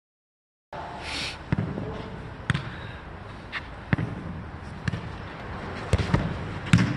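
After a brief silence, a jokgu ball is kicked and bounces on the court in a rally: sharp thumps about once a second, some in quick pairs.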